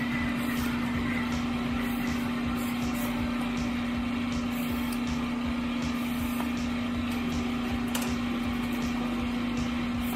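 A steady machine-like hum holding one constant low tone, with faint brief ticks and rustles on top.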